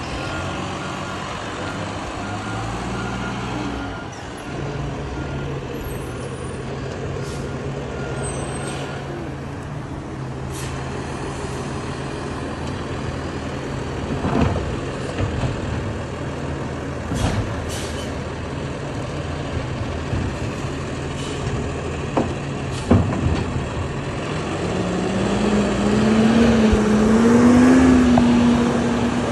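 Garbage truck engine running steadily at the curb, with a backup alarm beeping over the first several seconds and a few sharp clanks around the middle. Near the end the engine gets louder and rises in pitch as the truck pulls away and drives past close by.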